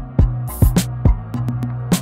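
Background music with a programmed drum beat: deep kick-drum thumps and sharp snare hits over a steady bass line.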